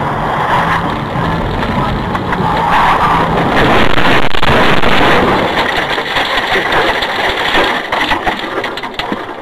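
Car driving noise, engine and tyres, heard from inside the cabin. It swells loudest about four to five seconds in, with a few sharp knocks along the way.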